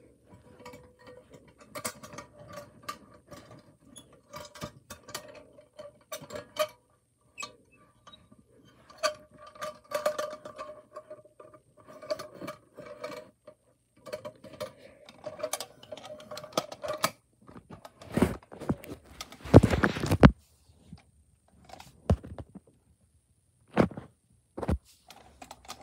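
Toy farm wagons and tractors being handled and turned over: scattered light clicks and rattles, with a faint on-and-off tone through the first two-thirds. Several louder knocks and rubs come near the end.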